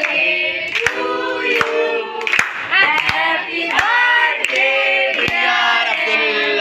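A group of people singing a birthday song together while clapping in time, about one clap every three-quarters of a second.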